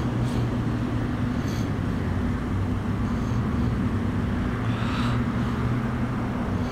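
Steady low mechanical hum, two even tones an octave apart, with faint distant sounds over it.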